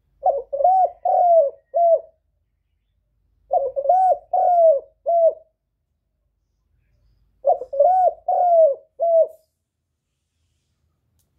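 Spotted dove cooing: three calls a few seconds apart, each of four notes.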